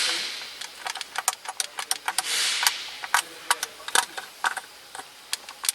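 Rapid irregular clicks and rattles of hard plastic console parts being pushed and handled, with a brief hissing rustle about two seconds in; the part is a stuck center console knob that will not push in.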